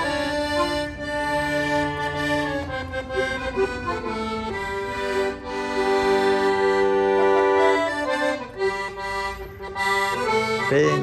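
Accordion playing a tune in long held notes and chords, the pitches shifting every second or few seconds.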